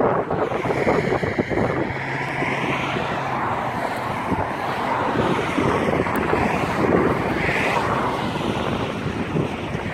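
Wind buffeting the microphone in uneven gusts, with a faint steady low hum underneath for the first few seconds.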